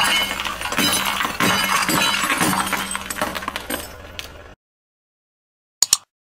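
Plates breaking and crunching under a car tyre: repeated sharp cracks with shards clinking and grinding together. The sound stops abruptly about four and a half seconds in, and a short double click follows near the end.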